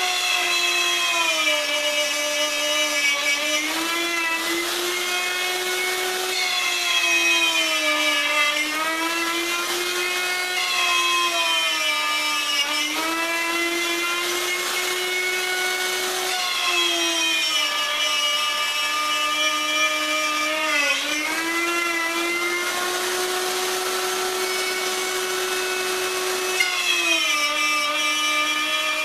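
Electric wood router cutting along the table top's edge at high speed: its steady whine drops in pitch every few seconds as the bit loads up in the cut, then climbs back as the load eases.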